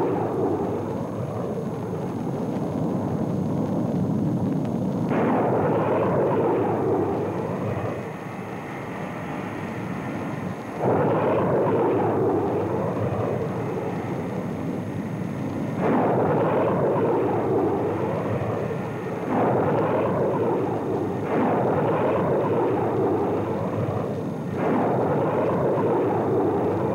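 Carrier jet aircraft at full power during catapult launches from the flight deck. A rough roar starts abruptly several times, each time a new launch begins.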